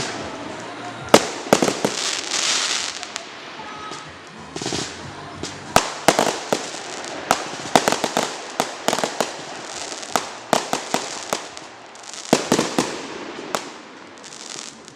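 Fireworks and firecrackers going off: many sharp bangs, often in rapid clusters, with stretches of hissing crackle between them.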